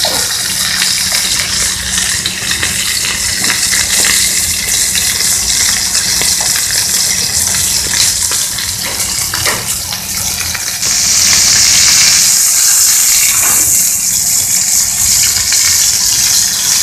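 Beef steak searing in hot olive oil in a skillet over high heat, sizzling steadily. About eleven seconds in, the sizzle jumps louder and hissier as the steak is turned over onto its raw side.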